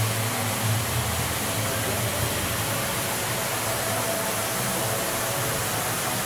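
Ruby Falls, a tall underground waterfall, rushing steadily, its noise echoing off the cavern walls.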